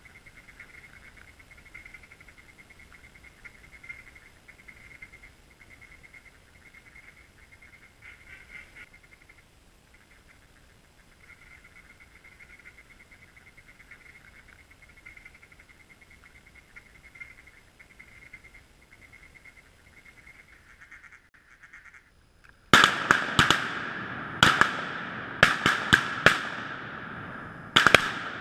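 A quick volley of about eight shotgun shots over some five seconds near the end, each ringing off in a long echo through the timber. Before the shooting there is only a faint steady high-pitched background.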